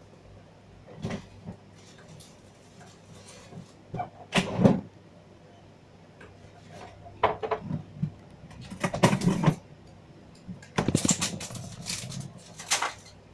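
Small plastic Lego pieces being handled and pressed together on a tabletop: scattered clicks and short clattering bursts, several of them bunched in quick clusters.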